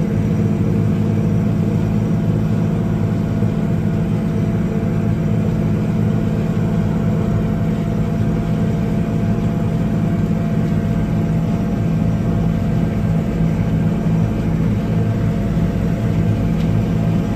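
Allis-Chalmers 8010 tractor's diesel engine running steadily while pulling a PTO flail chopper through standing corn stalks.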